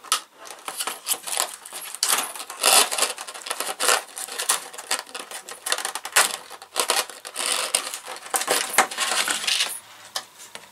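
Small cast-metal kit fittings and nails clinking and rattling in a plastic compartment tray as the parts packet is opened and handled, in many quick irregular clicks.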